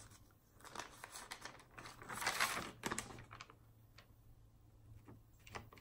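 Faint scattered taps and clicks with light rustling, from hands working a device such as typing or tapping while looking something up, for about three seconds, then a couple more taps near the end.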